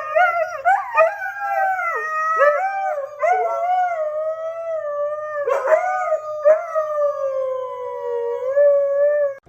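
A dog howling: one long, wavering howl with brief breaks and pitch dips, cut off abruptly at the end.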